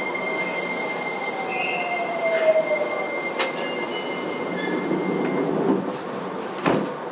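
Running noise heard from inside a Fukuoka City Subway 2000 series electric train, with a steady high tone and the motor whine falling in pitch as the train slows, and wheel squeal. A thump comes near the end, after which the noise drops.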